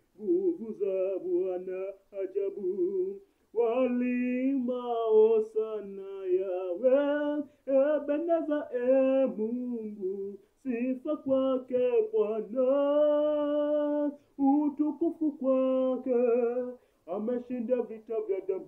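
A man singing a worship song solo and unaccompanied, in phrases with held, wavering notes and short breaths between them.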